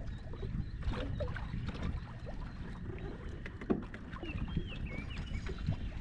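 Lake water slapping against a small aluminum boat's hull, with a steady low rumble and scattered light knocks. A bird chirps a few quick notes about four seconds in.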